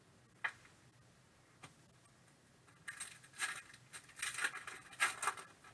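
Two light clicks, then a foil trading-card pack wrapper crinkling in several crackly bursts over about two and a half seconds as it is torn open by hand.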